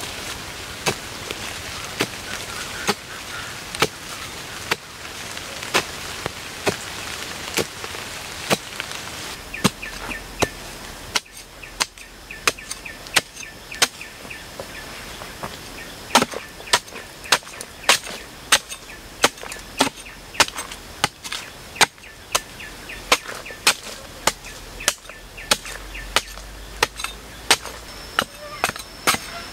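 A long metal blade chopping into hard, root-filled soil in repeated sharp strikes. They come about once a second at first, then from about halfway they are louder and more regular, roughly three every two seconds.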